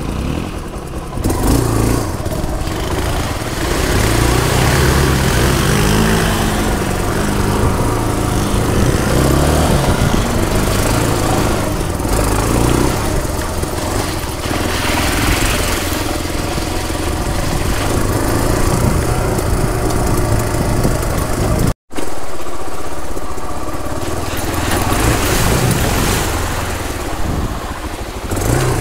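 Motorcycle engine running as the bike rides a rough, muddy trail, its revs rising and falling. The sound drops out for an instant about three-quarters of the way through.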